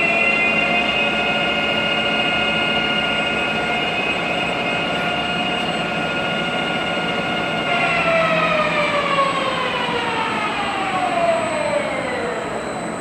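SUA 125 CNC lathe running a facing cut, its spindle drive giving off a steady whine of several tones. After about eight seconds the whine glides smoothly down in pitch as the spindle slows at the end of the cut.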